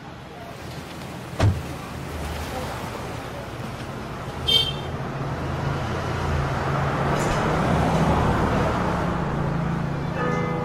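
Car and road sounds: a low steady engine hum under a rushing noise that swells and peaks about three quarters of the way through, with a sharp thump about a second and a half in and a short high chirp near the middle.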